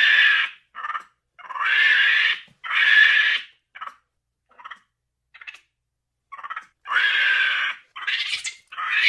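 An animal crying over and over in short, high pitched calls, each up to about a second long with short gaps between them. The calls thin out to a few faint short cries in the middle and grow longer again near the end.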